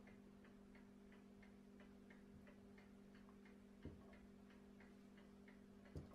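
Near silence: a faint, even ticking about three times a second over a low steady hum, with two soft knocks, about four seconds in and near the end, as the brake caliper is handled.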